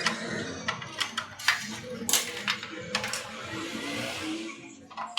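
Irregular sharp metallic clinks and knocks, a dozen or so at uneven spacing, over a low murmur of voices.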